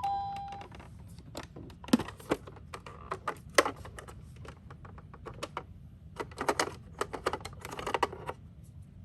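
A toy ambulance's electronic two-tone siren cuts off about half a second in, followed by irregular small clicks and clatters of toy cars being handled, in two clusters.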